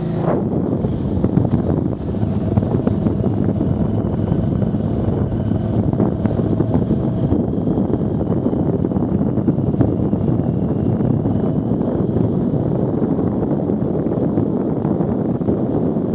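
Wind rushing over the microphone of a camera on a moving KTM motorcycle, a steady dense noise, with the motorcycle's engine running faintly beneath it as the bike speeds up to about 40 km/h.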